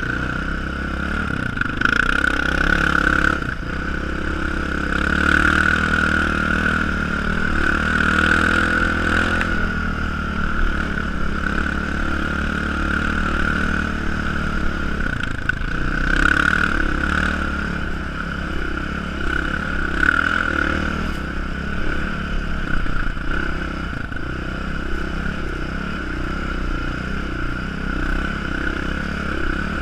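Sport ATV engine running under way, the sound swelling several times as the throttle is opened and easing off between.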